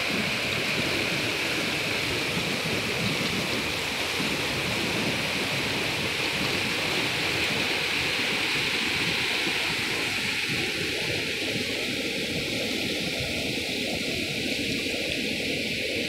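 Muddy floodwater of a creek swollen by heavy rain rushing over rocky rapids in a steady, unbroken rush of water.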